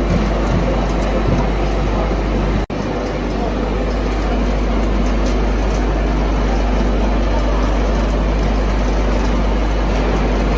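Industrial machinery running: a steady mechanical rumble with a low hum underneath. It drops out for an instant about two and a half seconds in.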